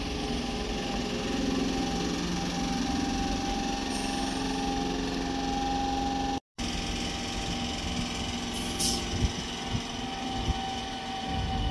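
Class 465 Networker electric multiple unit moving slowly alongside the platform: traction motors whining in steady tones over the rumble of the wheels, with a few short knocks from the wheels on the rail near the end. The sound cuts out briefly about halfway through.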